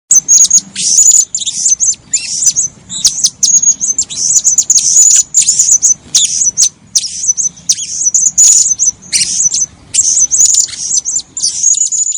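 Blue-crowned hanging parrot (serindit) calling: a rapid, nearly unbroken run of very high-pitched chirps and short trills.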